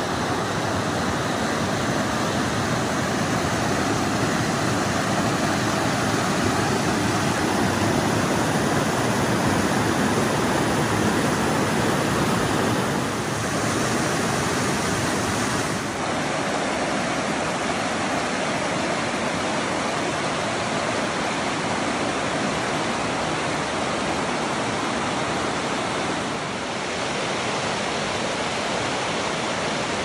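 Water rushing steadily over shallow rock cascades at a waterfall, a constant splashing hiss.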